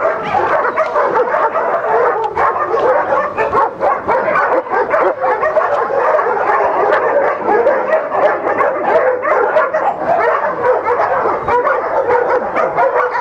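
Several dogs barking and yapping at once, their barks overlapping into a continuous din with no break.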